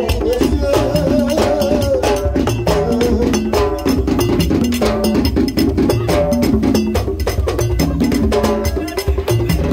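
Haitian Vodou ceremonial music: a struck iron bell ringing in a fast, steady pattern over hand drums, with voices singing a chant.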